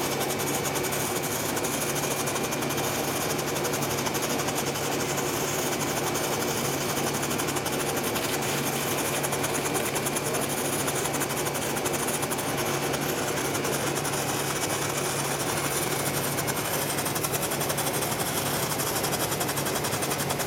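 Supreme Fireworks Large Strobe ground fountain burning steadily, its strobe composition giving a dense, unbroken stream of rapid small pops over a constant hiss.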